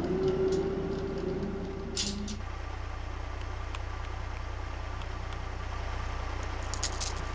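A truck engine idling steadily, with the hydraulic tailgate lift whining as it rises for the first two seconds and stopping with a clunk. A few quick clicks come near the end.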